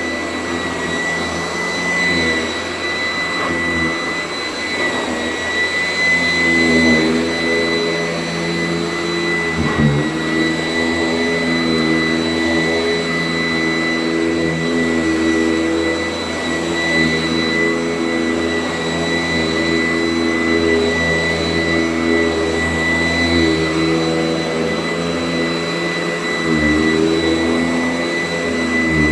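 Sanitaire S675 upright vacuum cleaner running steadily across the floor, with a high-pitched motor whine over a lower hum that shifts in pitch a few times.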